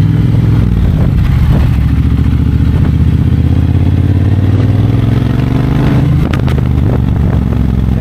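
Triumph Bonneville Bobber 1200's parallel-twin engine and throaty exhaust running under way. The engine note climbs steadily, then drops sharply about six seconds in.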